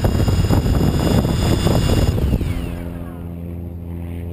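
FPV quadcopter's brushless motors whirring roughly while the drone sits on the grass after touching down; about two seconds in they wind down with a falling whine, and a steady low hum is left.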